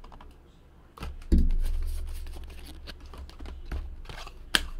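Scattered light clicks and taps from handling things at a desk, with one dull thump a little over a second in and a sharp click near the end.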